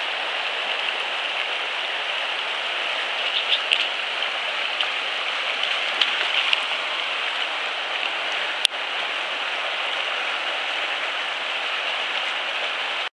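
Mountain stream rushing steadily over rocks and through rapids, with a few faint ticks and one sharp click about eight and a half seconds in.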